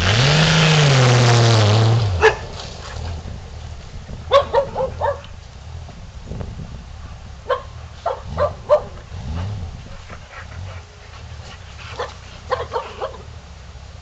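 Honda Gold Wing motorcycle pulling away, its engine pitch climbing and then dropping off, gone after about two seconds. Then a dog barks in several short runs of a few barks each.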